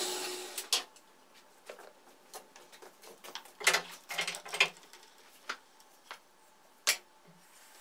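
Metabo HC 260 planer-jointer's motor and cutter block winding down after being switched off, followed by scattered light clicks and knocks, the loudest about four and seven seconds in.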